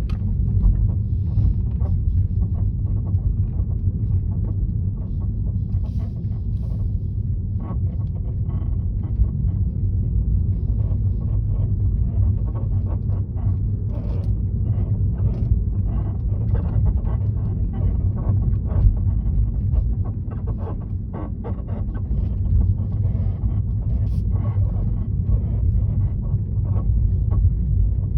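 Tesla Model 3 squeaking in many short, irregular squeaks over a steady low rumble from the moving car.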